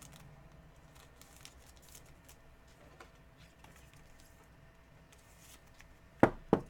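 Faint rustling and light clicks of trading cards being handled, then two sharp taps in quick succession near the end.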